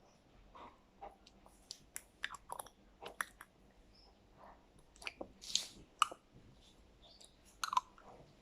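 Yogurt being eaten: irregular wet smacking, licking and chewing clicks, several a second.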